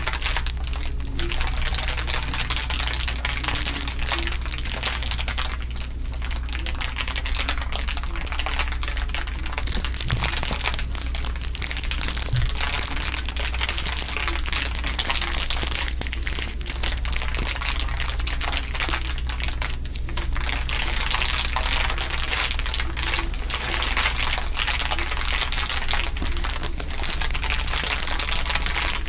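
Layers of crinkling, a dense, continuous crackle with no pauses, over a steady low hum.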